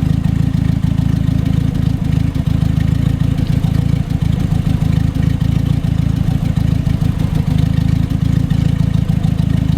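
1982 Datsun wagon's four-cylinder engine idling steadily, with a light tick in it that may mean the valves need adjusting again; the owner also suspects another minor vacuum leak.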